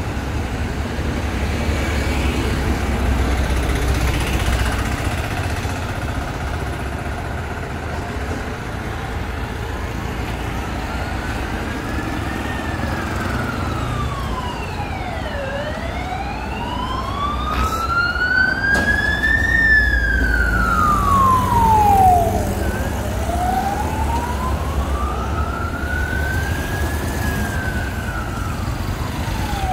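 Street traffic rumbling, and from about a third of the way in an emergency vehicle's siren wailing slowly up and down, a rise and fall every several seconds. The siren is loudest just past the middle.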